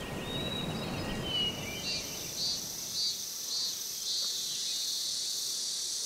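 Insects, crickets by their sound, chirping: a steady high trill with a short chirp repeating about twice a second. The last of an iron wind bell's ringing fades out in the first second.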